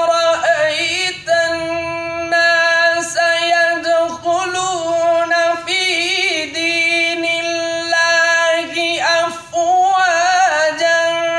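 Vocal music: a singer holding long, wavering notes, with a few short breaks between phrases.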